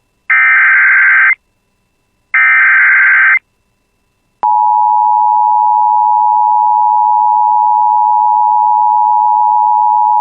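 Emergency Alert System SAME header: two bursts of digital data tones, each about a second long and a second apart. After a click about four seconds in, the steady EAS attention tone begins and holds.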